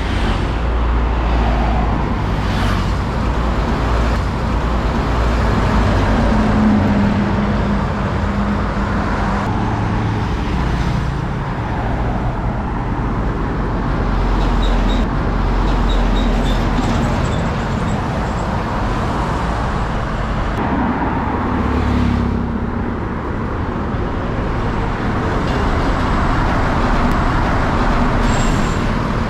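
Highway traffic passing close by: motor scooters and heavy trucks, among them a container semi-trailer, with a steady mix of engine drone and tyre noise that swells and eases as each vehicle goes past.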